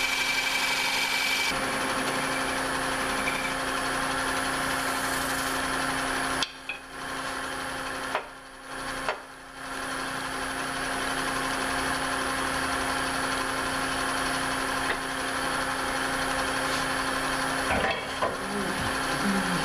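Powermatic 3520 wood lathe running steadily with a spinning walnut bowl. For about the first second and a half, a half-inch bowl gouge takes a light push cut across the bowl's bottom with a scraping hiss of fine shavings. After that only the even machine drone remains, dipping briefly a few times around eight seconds in.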